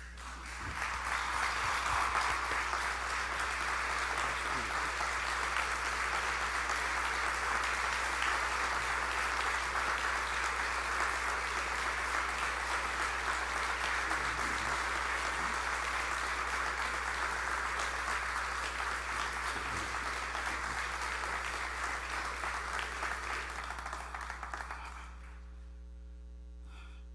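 Congregation applauding: sustained clapping from a large crowd that swells within the first couple of seconds, holds steady and dies away about 25 seconds in.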